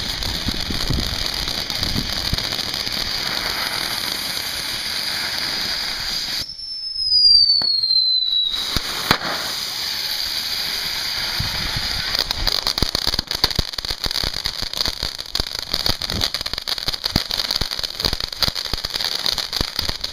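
Ground fountain fireworks spraying sparks with a steady hiss. About seven seconds in a whistle falls in pitch for a second or two, and in the second half dense crackling sets in.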